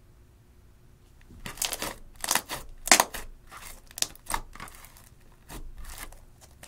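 Clear slime coloured with pink and red eyeshadow being squished and folded by hand, giving a string of short crackles and pops that start about a second and a half in and fade out near the end.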